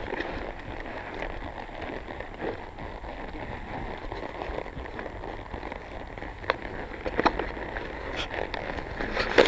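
Steady rustling and crackling handling noise from a camera carried on horseback at a walk, with a few sharp clicks in the second half.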